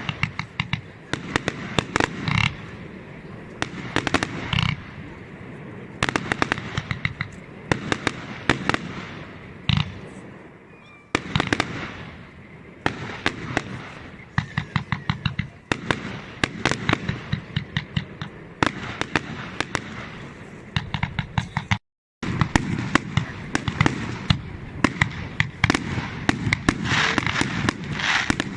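Fireworks display: dense, rapid crackling and popping from crackle effects, with a few louder bangs among them. The sound cuts out for a moment about three quarters of the way through.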